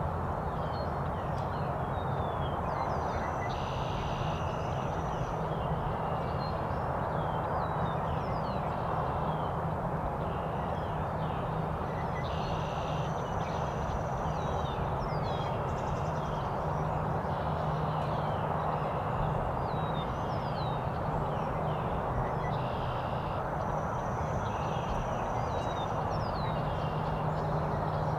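Wild songbirds calling and singing, many short chirps and whistles, with one longer song repeating about every ten seconds, over a steady rushing background noise.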